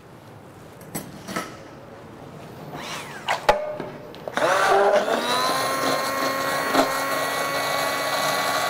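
A few clinks of a steel pot being handled, then, about four seconds in, a hand-held immersion blender starts up. Its pitch settles down just after it starts and it then runs steadily, frothing a beurre blanc sauce in the pot.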